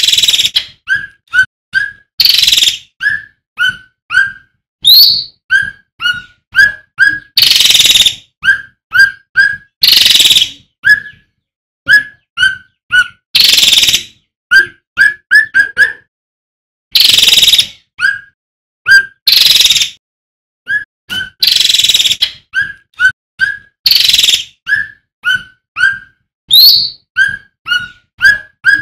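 Male cucak ranting (cucak rante) singing: quick runs of short, rising whistled notes broken by loud, harsh bursts, with a brief pause about halfway through.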